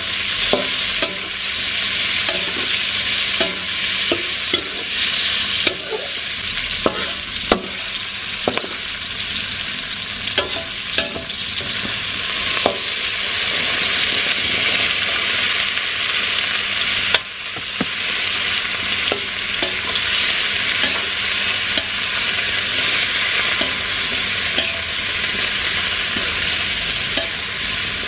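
Stir-frying in a metal wok: a steady sizzle of hot oil with a metal spatula repeatedly scraping and clacking against the pan. About halfway through, cut long beans are tipped in and the sizzle swells.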